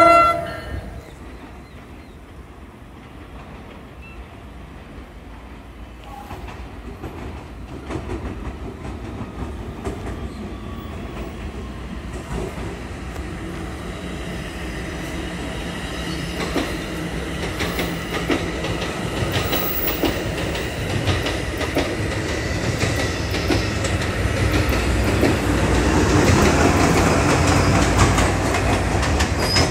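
A train approaching on the tracks, growing steadily louder and loudest near the end, its wheels clicking over the rail joints.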